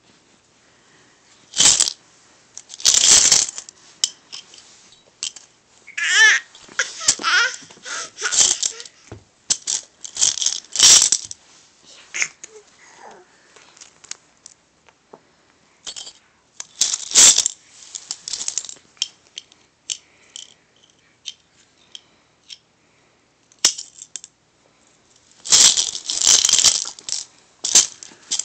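Coins rattling and clinking inside a coin bank as a toddler shakes and handles it, in repeated bursts of clatter with pauses between. A short child's vocal sound comes about six seconds in.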